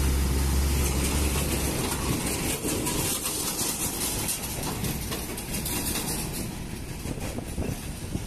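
Articulated tanker truck passing close: a low engine drone as the cab goes by in the first two seconds, then the rumble and clatter of the multi-axle trailer's wheels, slowly fading as it drives away.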